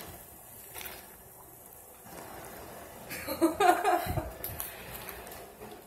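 Quiet room tone with one short click about a second in, then halfway through a few seconds of a person's soft voice with some handling noise and a brief low thud.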